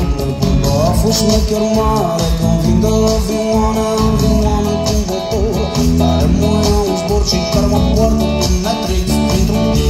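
Live rock band with a Balkan flavour playing a song: strummed acoustic guitar over bass guitar and drums, loud and steady.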